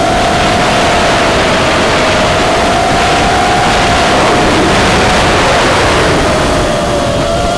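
Onboard sound of an FPV racing quadcopter in flight. Its Cobra 2205 2300kv brushless motors and 5-inch props make a steady whine whose pitch wavers slightly with throttle, under loud rushing air and prop wash that grows stronger around the middle.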